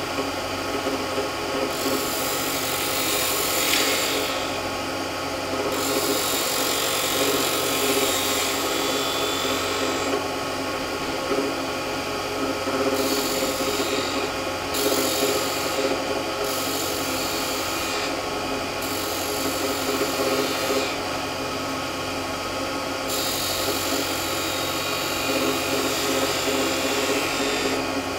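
Wood lathe running with a steady motor hum while a spindle gouge cuts a bead in the spinning wood blank. The cut comes as a series of shaving passes from side to side, each lasting one to four seconds, with short breaks between them.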